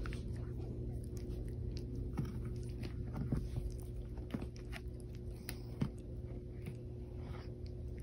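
A puppy gnawing and licking at a knot hole in a hardwood floorboard: scattered sharp clicks of teeth on wood over a steady low hum.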